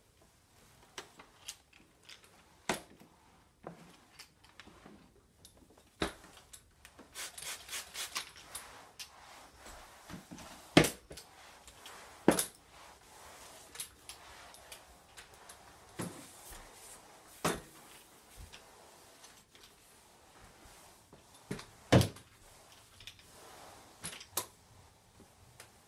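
Plastic spray mop being worked over hard floors: scattered sharp clicks and knocks from its head and handle, with a quick run of clicks about eight seconds in and the loudest knocks about 11, 12 and 22 seconds in.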